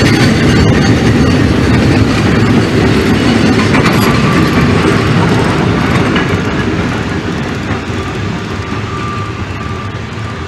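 Narrow-gauge steam locomotive and its coaches running past close by. Loud at first, the sound fades steadily from about six seconds in as the train moves away.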